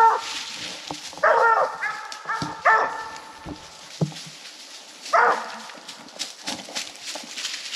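Coonhound barking at a tree: about four loud, ringing barks, one of them drawn out, in the first five seconds or so, with a gap before the last one.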